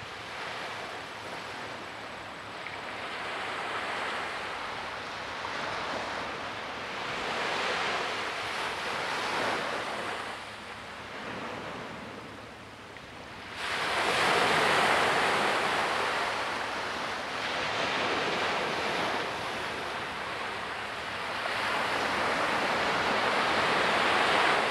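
Small waves breaking and washing up a sandy beach, the surf swelling and fading every few seconds. A louder surge comes in suddenly just past halfway, and another builds near the end.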